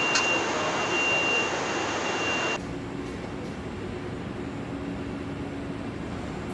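Steady industrial machinery noise with a thin high whine. About two and a half seconds in it cuts off abruptly, giving way to a quieter, lower hum with a few steady tones.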